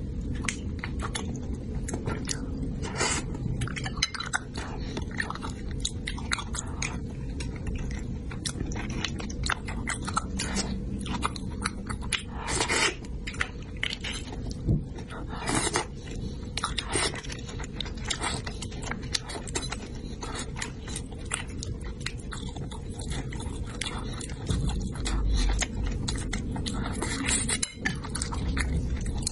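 Close-miked eating: a person chewing soft braised fish, with frequent short wet mouth clicks and smacks, over a steady low background noise.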